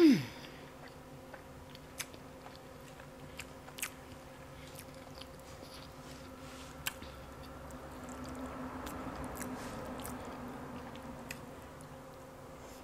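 Close-miked chewing and mouth sounds of someone eating fried catfish and sides, with a few faint, sharp clicks of a fork against the plate. It opens with a brief voice sound falling in pitch, the loudest moment.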